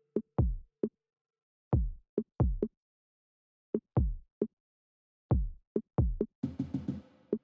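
Background electronic music: a sparse drum-machine beat of deep kick drums, each one dropping in pitch, with a short hissy cymbal-like burst near the end.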